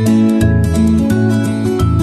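Music with plucked guitar: a run of pitched notes over a bass line, changing every fraction of a second.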